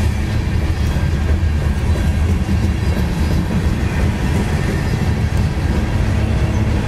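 Mixed freight train of tank cars, hoppers and boxcars rolling past close by: a loud, steady rumble of steel wheels on the rails.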